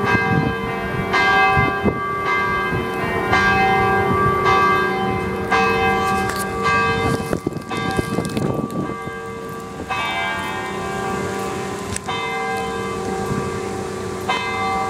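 Church bells ringing from a tower: a strike about every second, each leaving long ringing tones. The strikes pause for a few seconds about halfway through while a rushing noise passes, then carry on.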